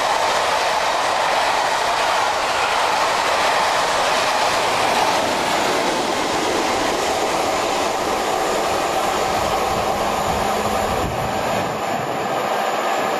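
Loco-hauled passenger coaches running through a station at speed and going away, a steady noise of wheels on rail with some clickety-clack over the joints, easing slightly near the end.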